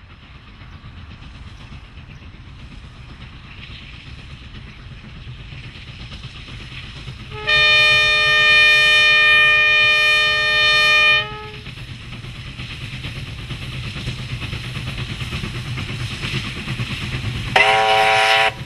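Double-headed Chinese QJ steam locomotives working a train, their running a steady rumble that grows louder as they approach. About a third of the way in a steam whistle sounds one long blast of about four seconds, and near the end a second, shorter whistle with a different tone sounds.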